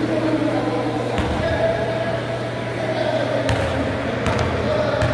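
Background of distant spectators' voices over a steady low hum, with a few sharp knocks scattered through.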